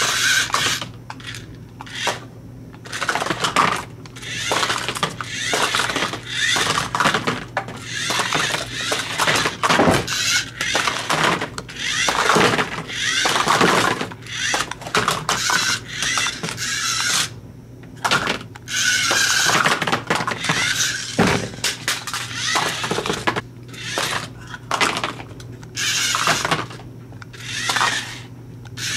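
Hard plastic capsules knocked over and clattering onto a tabletop, over and over, as a small remote-control toy car runs into the stacks. The toy car's electric motor whirs between the knocks.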